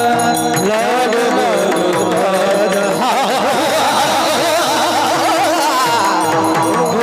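Marathi kirtan: a high, heavily ornamented voice sings a devotional melody over steady held tones, with pakhawaj drumming in quick strokes.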